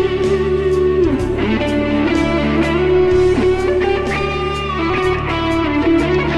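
Epiphone Les Paul electric guitar with Seth Lover humbuckers, played through a Yamaha THR10C amp, playing a lead solo of sustained notes with string bends. Steady low bass notes sit underneath.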